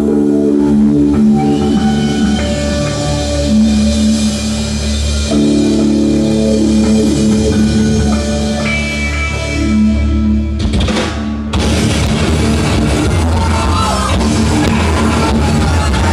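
Live rock band playing at full volume: distorted electric guitars hold long notes over bass and drums. About eleven seconds in, a short noisy swell leads into a denser passage with fast, busy drumming.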